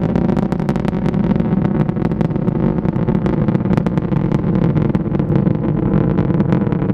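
Antares rocket's first stage, its two Russian-built RD-181 engines, heard from afar during ascent: a steady rumble with constant crackling.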